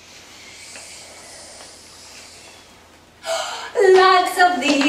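Quiet room for about three seconds, then a sharp breath and a loud, high, drawn-out vocal call with a falling pitch begins near the end.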